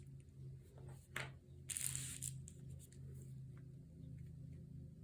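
Crinkling and rustling of recycled Amazon envelope material and fabric being handled, with a click about a second in and the loudest rustle about two seconds in, over a faint low hum.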